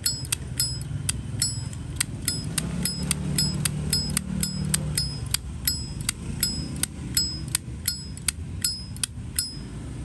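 Zippo Titanium two-tone lighter's lid being flicked open and snapped shut over and over: a fast, even run of sharp metallic clicks, about three a second, each with a short bell-like ring. The clicking stops near the end. It is the lid's ringing 'temple-bell' tone that collectors prize.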